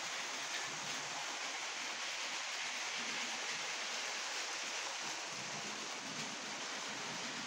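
Motorised Lego trains running on plastic track: an even, steady whirring hiss of motors and wheels, with no distinct clicks.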